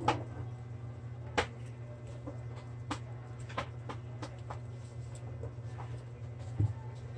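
Light clicks and taps of small tools and parts being handled at a workbench, one every second or so, over a steady low hum.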